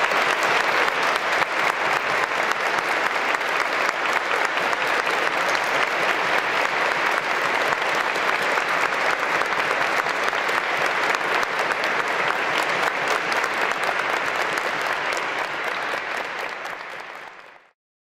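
Audience applauding steadily at the end of a concert, fading out near the end.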